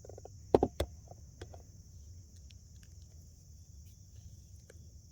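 Two sharp knocks close together about half a second in, then a few light clicks, over a steady high-pitched insect drone.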